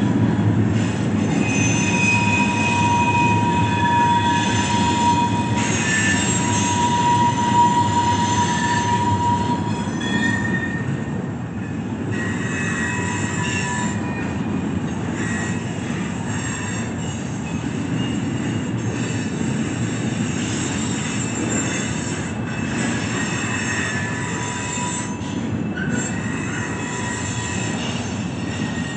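Loaded steel freight cars rolling past with a steady rumble, their wheels squealing in thin high tones that come and go on the curved wye track. The sound is a little quieter after about ten seconds in.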